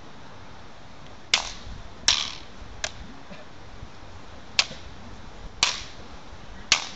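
Wooden staffs clacking together in a staff-fighting bout: six sharp knocks at uneven intervals, starting about a second in.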